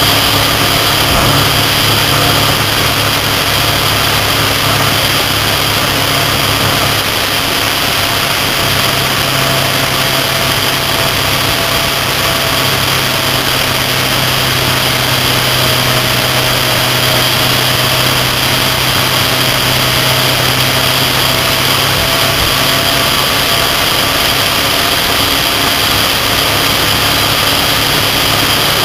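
Motorcycle riding at highway speed, heard from on board: a steady engine hum under loud, even rushing of wind and road noise.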